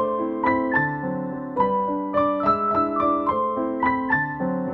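Background piano music: a gentle melody of single notes, each struck and fading, over lower accompanying notes.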